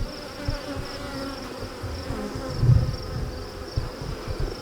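Honeybees buzzing steadily around a hive opened for inspection. A low thump comes a little over halfway through.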